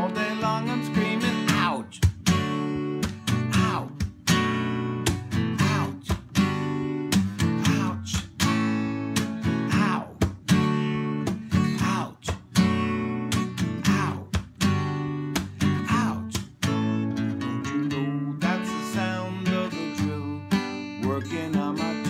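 Acoustic guitar with a capo, strummed in a steady rhythm, with a man's voice singing over it.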